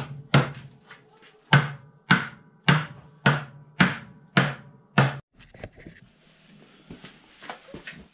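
A run of about nine sharp knocks, roughly two a second, each with a short low thud, stopping about five seconds in; softer clicks and rustling follow.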